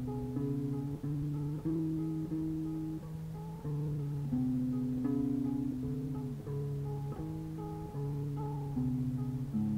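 Band practice recording played back from a cassette tape: guitar music of held notes changing every second or so.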